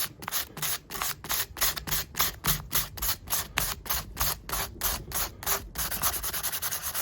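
Sandpaper rubbed back and forth over the small steel parts of Felco No. 2 pruning shears, about four strokes a second, scouring off grime loosened by the degreaser. Near the end the strokes turn quicker and shorter.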